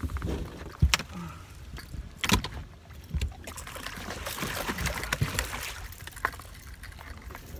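Knocks and clicks of rods, reel and gear being handled in a fishing boat while a hooked catfish is fought, a handful of sharp knocks spread through, over a low rumble and a soft hiss that swells near the middle.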